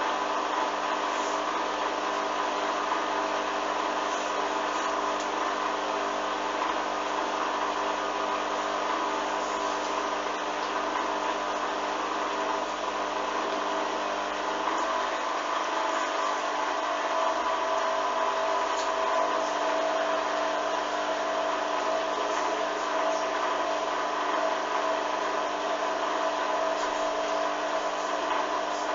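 Hoover washing machine's drum motor running with a steady hum of several tones as it turns the drum, trying to distribute an unbalanced load so it can spin. The lower tones shift about halfway through. The load stays unbalanced and the machine cannot get up to spin speed.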